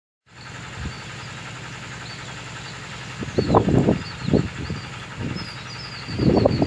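Outdoor ambience: a steady low hum with high bird chirps, broken by loud low rumbles about three seconds in and again near the end.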